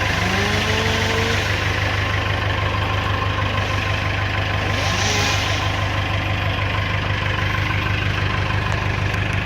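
Engine of heavy equipment idling steadily with a fast, even low pulse. A short rising whine comes near the start, and a brief hiss about halfway through.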